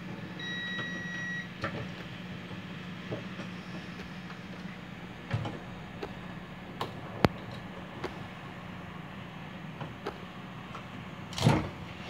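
A rubber drive belt and plastic pulleys of a Brastemp Ative washing machine's drive are handled as the stiff belt is worked on, giving scattered light clicks and knocks. A louder clatter comes near the end. A steady low hum runs underneath, and a short high beep-like tone sounds once about half a second in.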